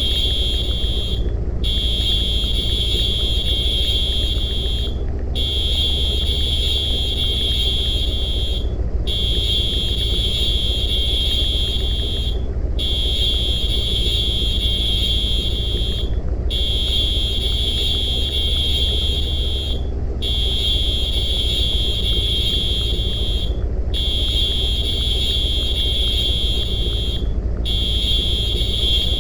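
High-pitched electronic alarm buzzer sounding one steady shrill tone in long beeps of about three and a half seconds, each broken by a brief gap. A steady low rumble runs underneath.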